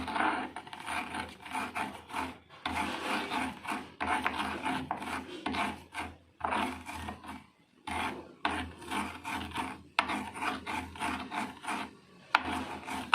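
Cardamom pods being crushed by hand with a spoonful of sugar: repeated gritty grinding strokes, broken by a few short pauses.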